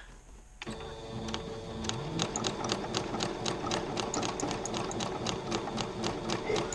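Computerized sewing machine starting up about half a second in, its motor speeding up and then running steadily. The needle stitches through needlepoint canvas with fast, regular ticks.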